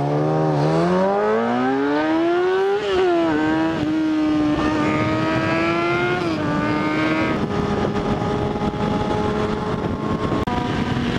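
Sport bike's inline-four engine pulling away hard from a stop. The pitch climbs steeply in first gear, drops at an upshift about three seconds in, and drops again around six and seven seconds in. It then holds steady at highway speed with wind rush on the helmet microphone.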